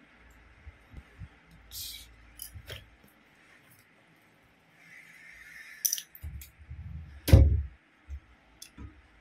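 Plastic building bricks handled and pressed together: scattered sharp clicks and clacks of hard plastic pieces, the loudest knock a little past seven seconds in, over low rumble of handling.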